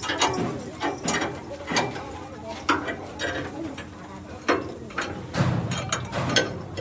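Irregular metallic clicks and knocks of tools at work on a truck, a sharp strike every half second to second.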